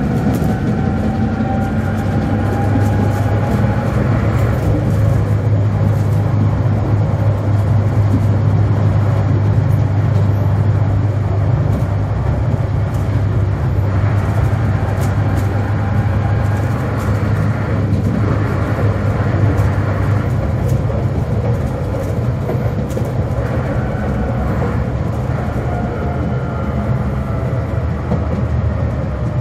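Tatra T4D tram running, heard from inside the second motor car: a steady low rumble from the running gear, with a faint whine that rises and falls and scattered clicks.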